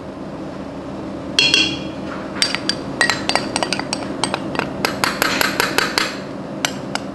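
Metal spoon clinking and tapping against a small ceramic bowl while cocoa powder is scooped out: one ringing clink about a second and a half in, then a quick run of light clicks and taps.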